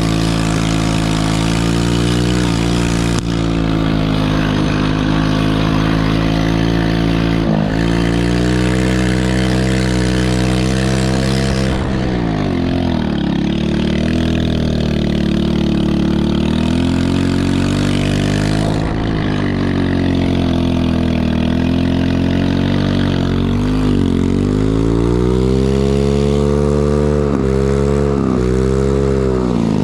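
Chinese 110cc ATV's small single-cylinder four-stroke engine running hard under throttle, held at steady high revs at first, then dropping and climbing again several times as the throttle is let off and opened back up.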